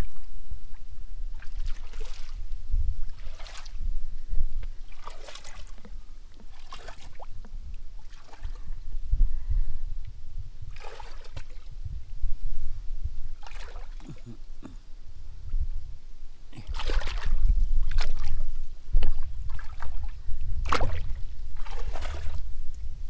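Hands working in wet mud and shallow water: irregular squelches and sloshing splashes every second or two, over a low rumble.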